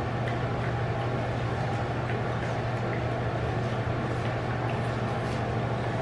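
A steady low machine hum with a few faint scattered ticks.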